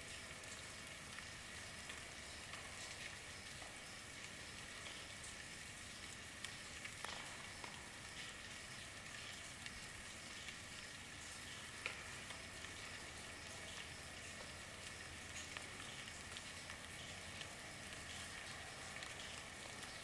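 Recorded rainfall: a steady soft hiss of rain with many small scattered drop ticks and a few louder drips, the loudest about twelve seconds in.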